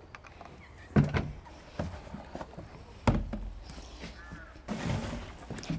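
Several knocks and clunks of gear being handled on the floor of a horse trailer, the heaviest a dull thud about three seconds in, then a shuffling rustle near the end.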